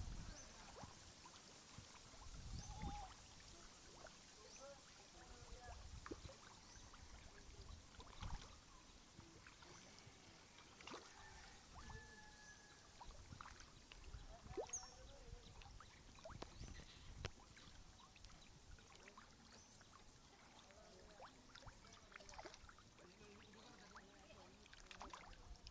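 Near silence: faint lapping of water with small scattered splashes and ticks.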